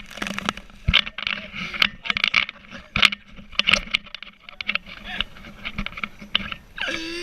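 Water spray and wind buffeting the microphone in uneven bursts while riding a towed inflatable at speed, over a faint steady hum from the towing boat's engine. A short shout comes near the end.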